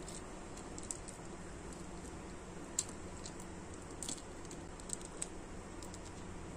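Scattered small plastic clicks and taps from an S.H.Figuarts Shinkocchou Kamen Rider Gatack action figure as its arm and shoulder joints are moved by hand. The sharpest click comes nearly three seconds in, over a faint steady hiss.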